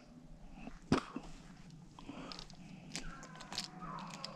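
Rabbit-hunting dogs giving voice faintly in the distance, with footsteps and twigs cracking in brush. A sharp snap about a second in and a run of clicks and snaps later on.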